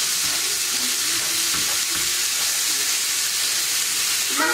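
Raw ground beef sizzling in a hot skillet, a steady frying hiss, while it is stirred and broken up with a utensil.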